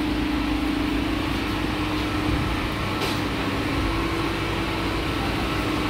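City-street background noise, steady throughout, with a constant low mechanical hum under it.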